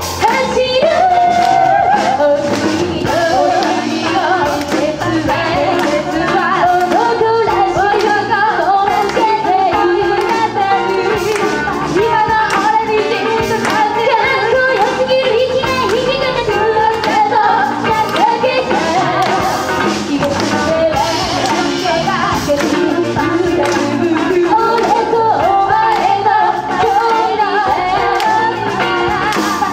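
Female vocalists singing an idol-pop song over a live band of drums, keyboard and guitar, recorded in a small club.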